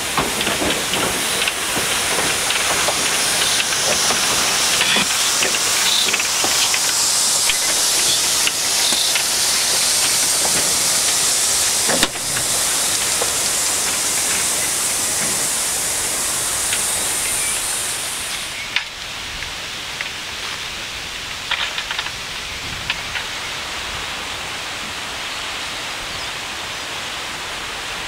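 Narrow-gauge steam train passing close by: a loud steady hiss of steam with many short clicks of wheels over the rail joints. The hiss cuts off suddenly about two-thirds of the way through, leaving quieter running noise and occasional clicks as the train draws away.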